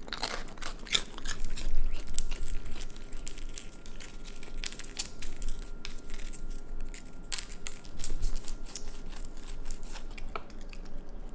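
A raccoon crunching and chewing Goldfish crackers, a quick run of sharp crunches that comes in clusters, thickest at the start.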